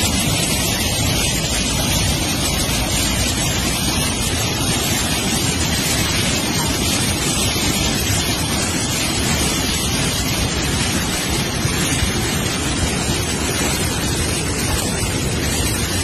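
Floodwater rushing in a steady, loud torrent.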